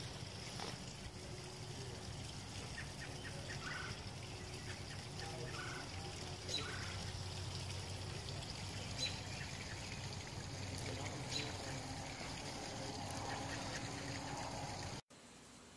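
Steady outdoor background noise with a few faint, short, high chirps scattered through it; the sound drops away abruptly near the end.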